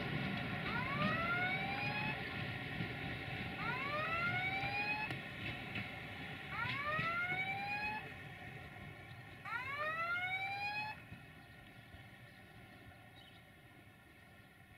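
Train rumble fading as it moves off, with a rising whine that repeats four times, about every three seconds, then stops.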